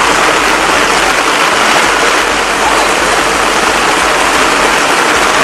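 Heavy rain pouring onto a street and wet road: a loud, steady hiss.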